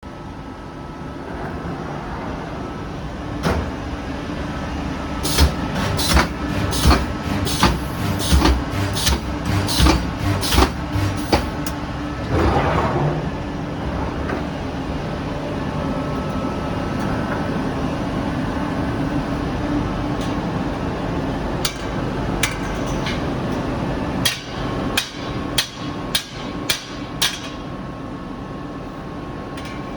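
Welding machine for wire clothes-drying racks at work. A steady hum runs underneath, with two runs of sharp metallic clacks at roughly two a second, one in the first half and one near the end. A short hissing burst falls between the runs.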